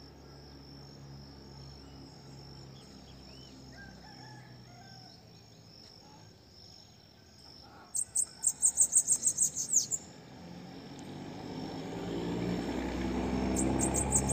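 Bananaquit singing: a quick run of high, thin, falling notes about eight seconds in, and another starting near the end. It is a bird just coming out of its molt that has only begun singing again. Under the song are a faint steady high tone and a low rushing background that swells in the second half.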